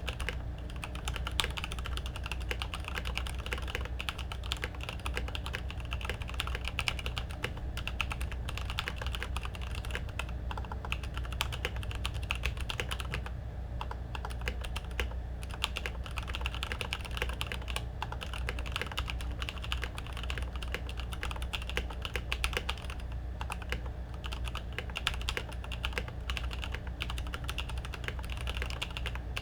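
Continuous fast typing on a mechanical keyboard with Kailh Black linear switches lubed in Tribosys 3204 and PBT keycaps, dense clacks with no pauses. A steady low hum sits underneath.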